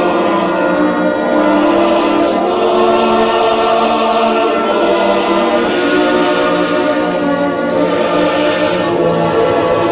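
Choir singing long held chords.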